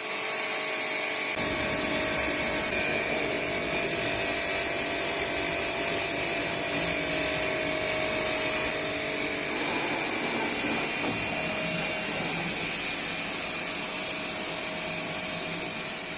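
Kisankraft high-pressure washer running steadily, a motor-and-pump whine under a high hiss; it grows louder and hissier about a second and a half in.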